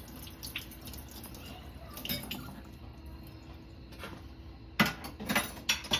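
A faint steady hum with a few light clicks, then a quick run of sharp knocks and clatters about five seconds in.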